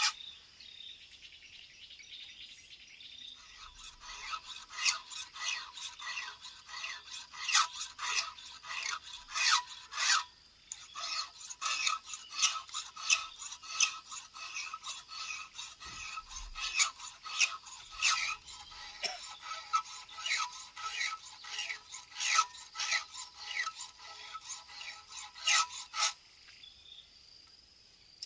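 Hand file rasping across the cutters of a Stihl MS 070 chainsaw chain during sharpening. The strokes come about one to two a second and stop near the end.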